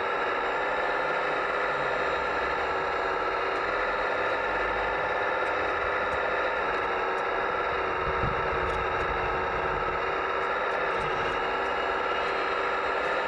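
Scale RC Case CX85 rail excavator running, a steady mechanical whine from its hydraulic pump and drives as the bucket curls and lifts, with a brief low rumble about eight seconds in.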